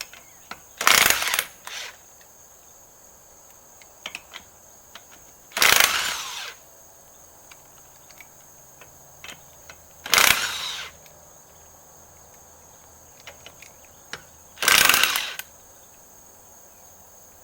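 Power impact wrench with a lug-nut socket, run in four short bursts about four seconds apart, each spinning a lug nut off a front wheel.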